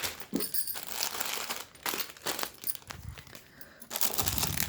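Packaging crinkling and rustling as jewellery pieces are unwrapped by hand, in irregular bursts with short pauses.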